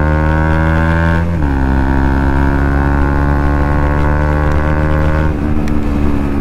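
Bajaj Pulsar NS200's single-cylinder engine through an aftermarket Akrapovic exhaust, loud, pulling under acceleration. The pitch climbs steadily, drops with an upshift about a second and a half in, climbs again, then drops with another upshift about five seconds in.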